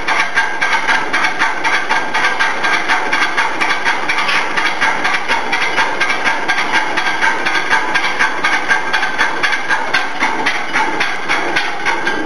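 1889 Lilienthal stationary steam engine No. 137 running at a steady pace, its exhaust chuffing with a hiss about three times a second, with light mechanical clicks on each stroke.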